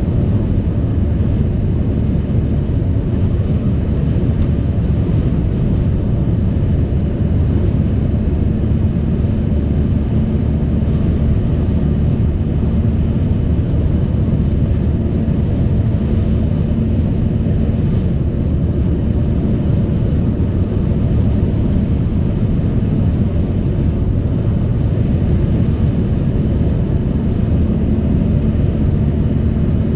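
Car on the move at a steady speed: an even, low rumble of tyre and engine noise with a faint steady hum, unchanging throughout.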